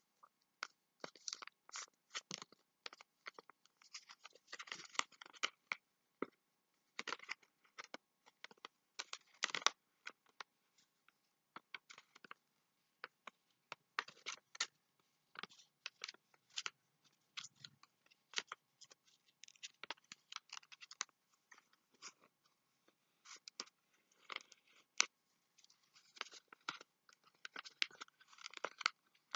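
Paper crinkling and rustling in short, irregular crackles as a sheet of paper is folded by hand and its creases pressed flat.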